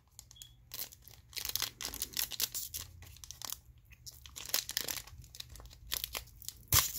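Foil booster pack wrapper for Pokémon cards crinkling and tearing in a run of irregular crackles as it is handled and opened, with a sharper crack near the end.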